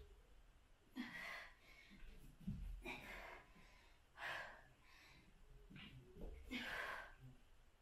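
A woman breathing hard from exertion, with about six short, heavy breaths spaced a second or so apart, faint.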